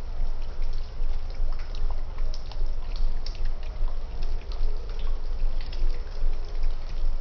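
Running water trickling and splashing, with many small drip-like clicks over a steady low rumble.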